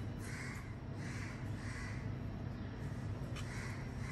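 A bird cawing: three calls about half a second apart, then another near the end, over a steady low hum.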